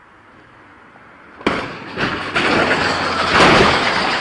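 A vehicle crash: a sudden bang about one and a half seconds in, then a loud, rough noise that builds and slowly eases.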